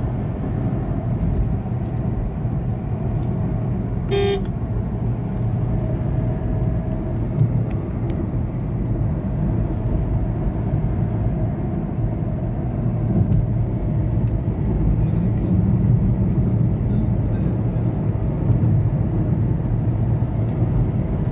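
Steady road and engine noise inside a moving Renault car's cabin at highway speed. A short vehicle horn toot sounds about four seconds in.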